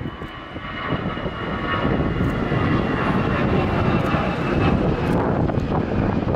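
Airbus A319 jet engines at climb power after takeoff: a steady broad rumble with a high whine over it, growing louder about a second in.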